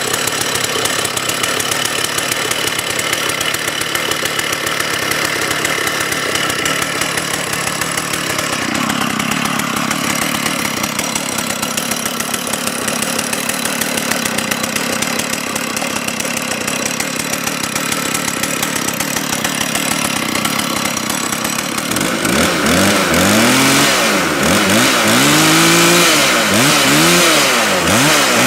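Stihl 084 two-stroke chainsaw running steadily at idle, then from about three-quarters of the way through revved up and down over and over, each blip rising and falling in pitch.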